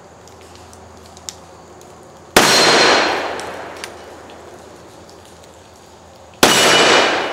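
Two shots from a Magnum Research BFR revolver in .500 Linebaugh, firing a heavy Buffalo Bore 525-grain hard-cast load, about four seconds apart. Each is a sharp, loud blast with a long echoing tail.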